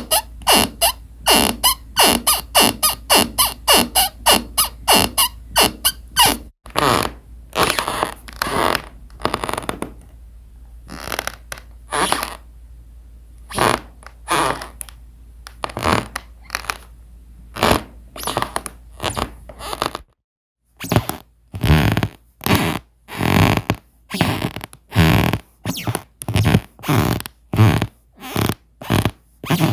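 Squeaky floorboards squeaking and creaking in quick repeated strokes, about three or four a second at first, then slower and uneven. After a brief break about twenty seconds in, a louder run follows at about two a second.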